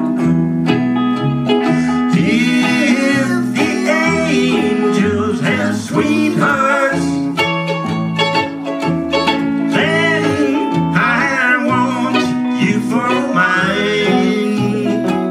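A small country string band playing live: archtop electric guitar, mandolin and upright bass.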